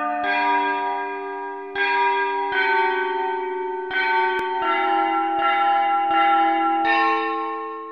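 Church bells ringing a slow series of strikes, about one a second, each note ringing on under the next.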